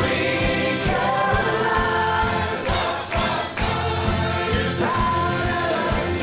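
Band music with several voices singing together over a steady beat.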